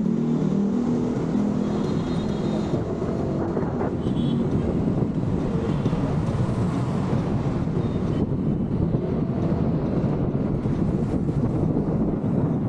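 Motorcycle on the move, with a steady rush of engine and road noise. The engine's hum stands out most clearly in the first second or so.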